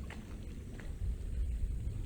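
Coastal outdoor ambience: a steady low rumble, with a faint steady high hiss above it and two brief faint chirps in the first second.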